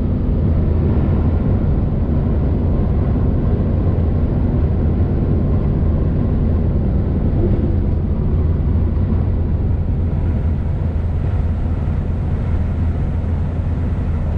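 Diesel tow truck driving at highway speed, heard from inside the cab: a steady low engine drone mixed with tyre and road noise.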